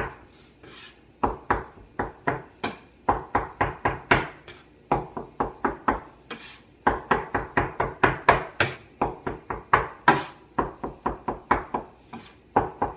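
Steel bench scraper chopping through potato gnocchi dough and striking a wooden butcher-block board, in runs of quick chops about four a second with a couple of short pauses; the extra flour is being cut into the dough.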